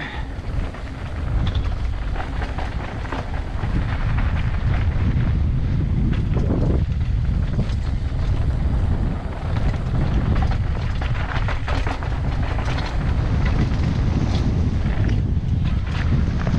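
Wind rushing and buffeting over the microphone during a fast mountain bike descent, with the tyres crunching over loose dirt and rock and the bike rattling in many short clicks.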